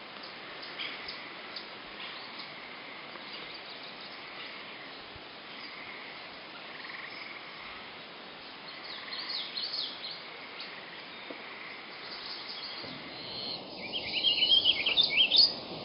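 Birds chirping over a steady outdoor background hiss, with a louder run of quick, high chirps about a second and a half before the end.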